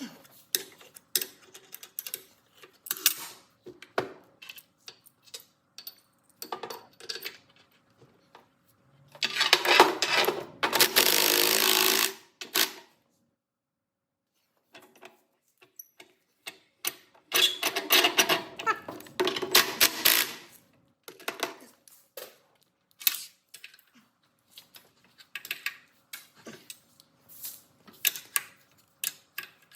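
Workshop sounds: scattered clicks and knocks of tools and metal parts being handled, broken by two loud stretches of a power tool running for about three seconds each, a third of the way in and again past the middle.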